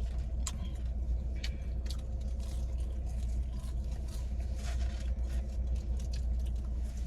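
Steady low rumble inside a car cabin, with scattered soft clicks and crunches of someone eating fries.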